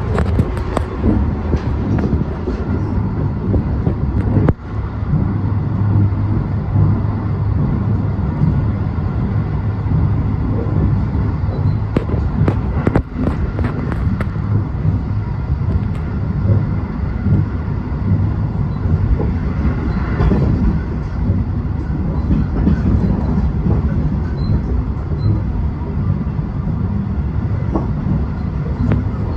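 Rapid Marine Liner electric train running at speed, heard from inside the passenger car: a steady rumble of wheels on rail, with a few sharp clicks partway through.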